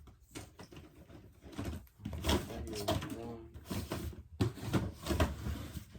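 Drawers being opened and shut, with fidget toys clicking and rattling as they are handled and sorted.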